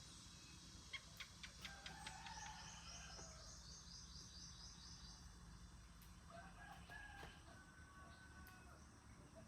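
Faint bird calls, a quick run of high chirps and a couple of longer held calls, over a steady low hum, with a few soft clicks about a second in.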